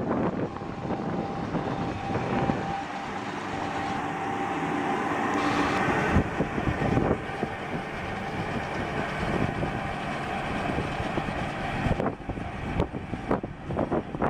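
John Deere 568 round baler running, a steady mechanical clatter, with a run of sharp clacks in the last couple of seconds.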